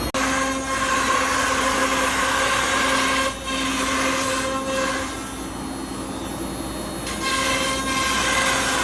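CNC router spindle running with a steady whine while its bit cuts through sheet stock. The sound dips briefly about three and a half seconds in and is somewhat quieter for a couple of seconds past the middle, as the cutting load changes.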